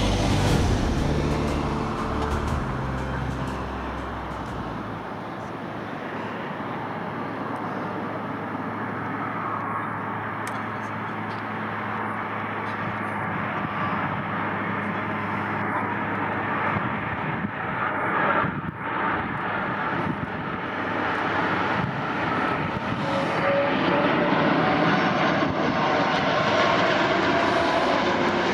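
Airplane engine noise, a dense steady rush that grows louder over the last several seconds, with a faint rising whine near the end.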